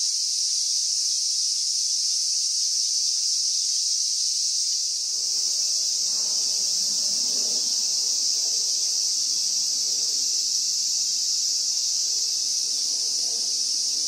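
Cicadas buzzing in a steady, unbroken high-pitched drone.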